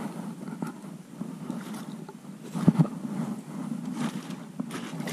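Two sharp knocks against an aluminium jon boat, a fraction of a second apart, about halfway through, over a steady low rumble.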